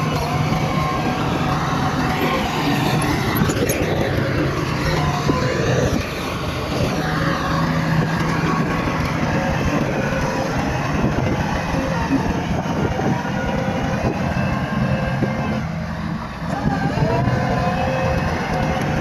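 Bulldozer's diesel engine running steadily under load, its pitch shifting as it works, with a few metallic clanks early on from the machine. About sixteen seconds in the engine briefly drops, then revs back up with a rising pitch.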